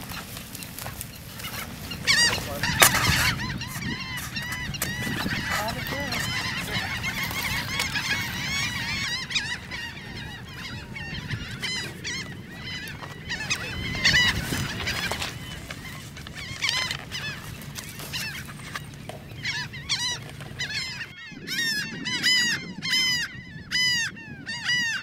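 Laughing gull colony calling: many nasal, arched calls overlapping in a dense chorus over a low rumble. About 21 seconds in, the sound changes to a single laughing gull calling over and over, one call every half-second or so, clear against a quiet background.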